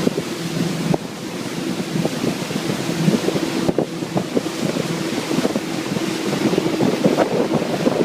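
Boat engine running steadily under way, with wind buffeting the microphone and water rushing past the hull.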